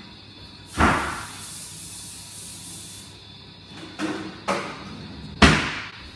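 Wall oven door and baking tray being handled. A thump about a second in is followed by about two seconds of hiss, then come a couple of knocks and a louder bang near the end.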